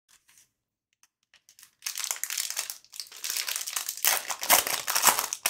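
Foil wrapper of a trading-card pack crinkling as it is handled and torn open, starting about two seconds in.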